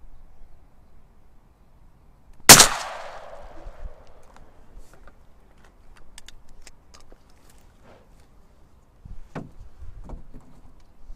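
A single shotgun shot about two and a half seconds in, echoing and fading over the open water. It is followed by scattered light clicks and rustling.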